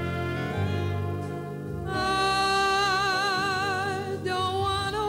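Big band playing, with a lead trumpet ending its phrase in the first moment. About two seconds in, a female vocalist comes in over the band, holding a long note with a wide vibrato.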